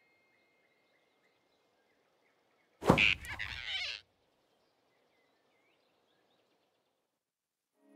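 Animated-film sound effect: about three seconds in, a sudden sharp hit followed by a rushing whoosh that lasts about a second. Around it, faint outdoor ambience with a few small bird-like chirps.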